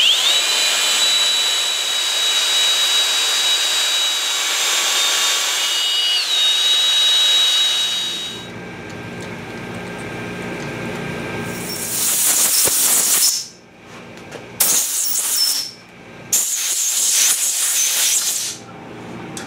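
24V cordless drill running steadily with a high whine as it drills a 5/32 tap-drill hole into the milling machine table, its pitch dipping slightly under load about six seconds in before it stops. After a quieter stretch of low hum come three hissing bursts of compressed air from a blow gun, clearing chips from the hole.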